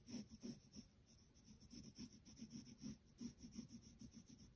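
Faint scratching of a wooden graphite pencil on drawing paper: quick short strokes, about three or four a second, as small marks are drawn.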